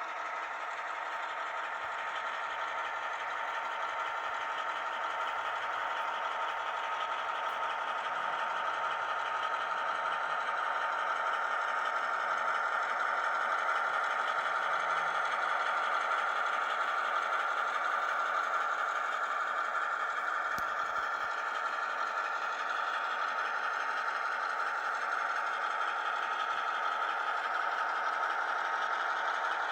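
HO scale model train running on the layout: a steady electric motor hum with wheel rattle on the track, growing a little louder over the first dozen seconds and then holding.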